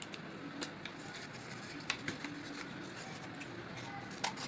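Scissors cutting through a folded sheet of paper: a few short, crisp snips at uneven intervals.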